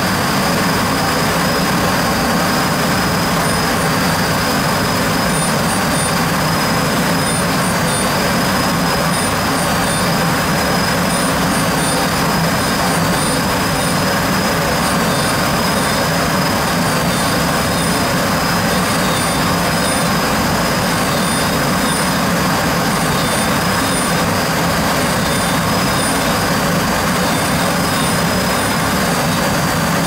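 Hwacheon Hi-M G1 vertical machining center's spindle running at 14,000 rpm while a 4 mm end mill cuts graphite: a steady high whine over an even rushing noise, with faint high chirps coming and going.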